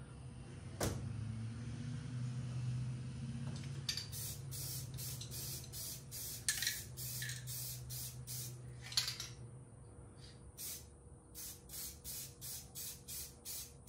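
Aerosol spray-paint can spraying in a string of hisses: longer bursts at first, then short quick bursts about two a second near the end. Under them a low steady hum fades out about two-thirds of the way through.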